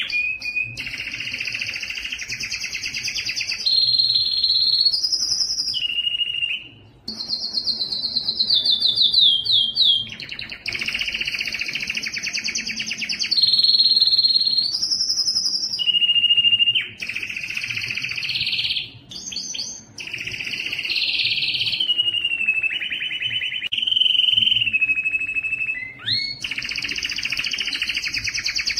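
Male canary singing a long, continuous song of rapid trills and rolls that switch pitch every second or two, with a slow falling trill about seven seconds in. This is the vigorous song of a male in breeding condition.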